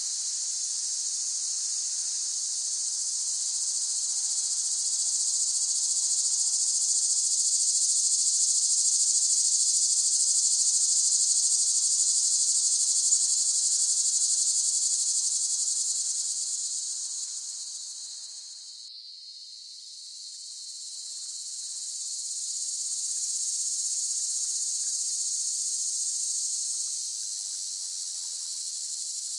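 Cicadas buzzing in a dense, steady, high-pitched drone that swells, fades to a low point about two-thirds of the way through, then builds again.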